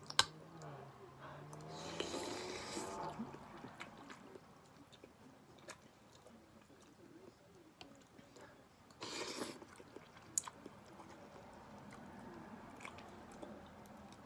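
Eating noodle soup: two slurps of noodles, one a couple of seconds in and one about nine seconds in, with soft chewing and light clicks of chopsticks and a ceramic spoon against a porcelain bowl between them. A sharp clink just at the start is the loudest sound, and a low hum of the voice runs under the first slurp.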